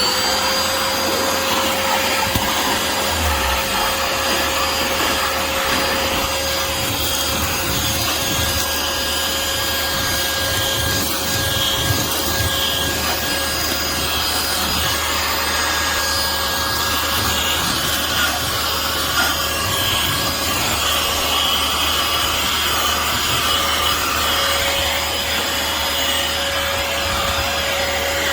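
Small cordless handheld vacuum cleaner running steadily, its motor whine holding one pitch, over a rough rubbing noise as it is worked over a surface.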